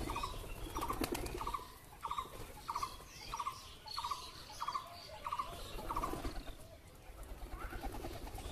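Domestic pigeons cooing low while a pigeon's wings clap and flap in take-off about a second in. Over it, another bird repeats a short, even call about twice a second for the first six seconds.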